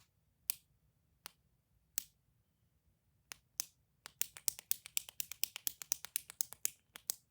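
Sharp clicks from a clicky toy: a few single clicks spaced about a second apart, then from about four seconds in a fast run of clicks, roughly eight a second.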